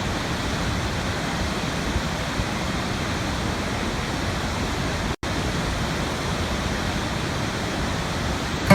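Waterfall rushing, a steady, dense roar of falling water with a momentary break in the sound a little past halfway.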